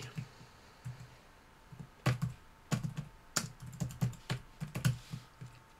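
Typing on a computer keyboard: a few scattered keystrokes at first, then a quick run of clicks from about two seconds in, as a line of text is typed.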